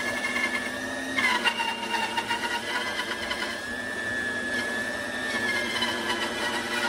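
Benchtop bandsaw running with a steady whine while its blade cuts through a hardwood board. About a second in the tone drops slightly and gets louder.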